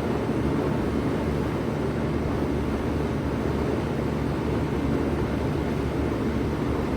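1996 three-ton Bard wall-hung heat pump running steadily in cooling mode: a constant low hum under an even rush of air.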